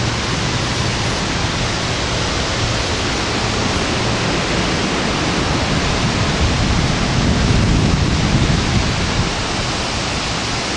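Steady rushing of a swollen creek's flowing water, an even hiss with a little more low rumble about two-thirds of the way through.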